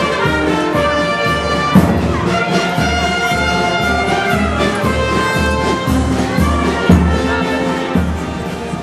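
Brass band music: sustained brass notes over a steady bass-drum beat of about two beats a second.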